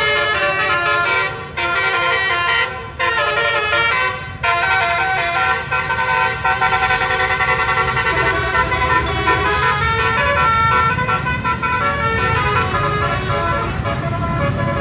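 Multi-tone 'telolet' bus horn playing a melody of stepping notes, with three short breaks in the first few seconds, then longer held chords. A bus engine rumbles underneath, growing louder near the end.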